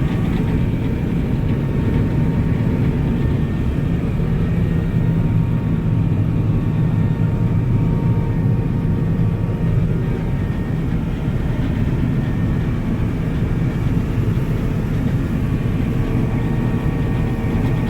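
John Deere 9750 STS combine running steadily while harvesting wheat, heard from the cab: an even, low drone from the engine behind the cab and the machinery.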